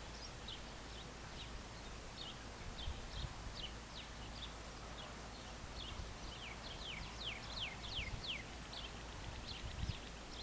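Birds chirping outdoors at dusk: many short, high notes that slide downward, with a quick run of longer falling notes around six to eight seconds in. A few low thumps sound beneath them.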